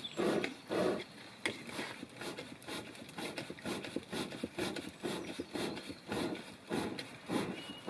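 Wooden hand bellows pumped steadily into a wood fire: rhythmic puffs of air, about two a second, louder in the first second or so.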